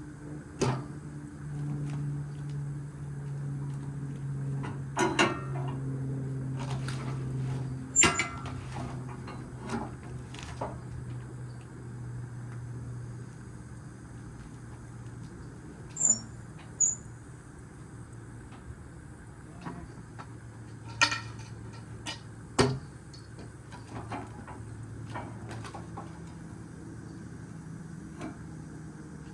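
An engine idling steadily, its hum dropping a little in pitch partway through and rising again near the end. Over it come scattered knocks and clanks, a few of them sharp, from a log being turned over by hand on the sawmill.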